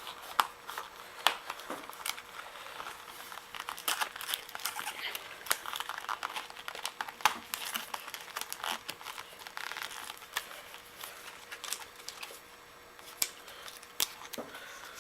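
A foam handlebar pad and its fastening straps being handled and fitted onto a handlebar: irregular crinkling with many small sharp clicks, thinning out a little near the end.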